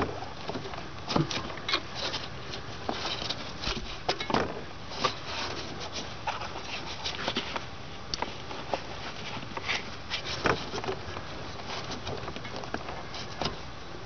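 Irregular small clicks, scrapes and knocks of a nylon pry bar and gloved hands prying at the stuck plastic fitting of an accelerator cable in the car's firewall.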